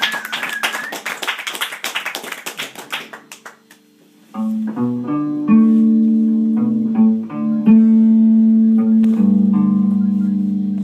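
Applause with a whistle, dying away over the first few seconds. Then, after a brief hush, an electric upright bowed string instrument played through an amplifier sounds a series of long, steady bowed notes, the last held on to the end.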